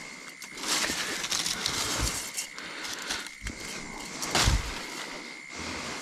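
Dry leaves and undergrowth rustling and crackling as a person pushes through on foot, in uneven bursts, with the loudest brush about four and a half seconds in.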